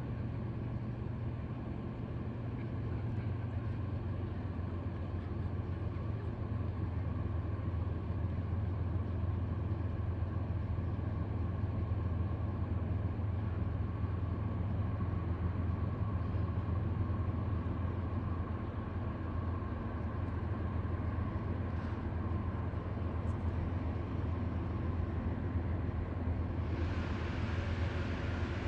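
Vehicle engine running with a steady low drone. Near the end a hiss comes in over it and carries on.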